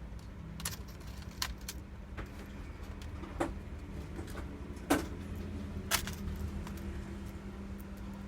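A handful of sharp clicks and taps from small screws, a screwdriver and plastic panels as a laptop's bottom casing is closed back up, over a steady low hum.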